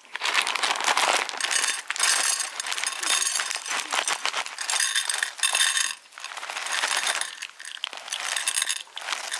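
Dry cat food kibble poured from a plastic bag, the hard pellets rattling and clattering onto a plate in about five pours with short pauses between them.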